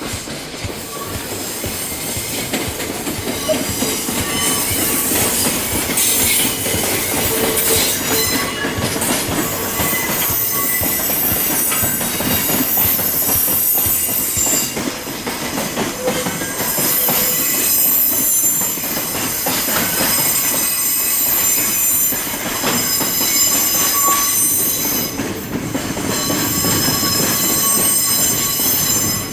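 Container flatcars being shunted by a DE11 diesel locomotive, their steel wheels squealing with many high tones and clicking over rail joints and points. The sound swells over the first few seconds and then stays loud.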